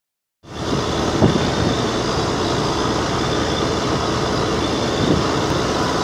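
Steady engine and road noise inside a moving car's cabin, starting about half a second in.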